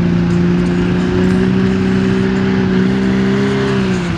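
Super stock diesel pulling truck's turbocharged 460-cubic-inch diesel engine held at high revs, the pitch climbing slightly and then sagging near the end.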